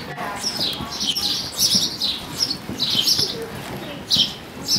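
Small birds chirping over and over, about two short high chirps a second.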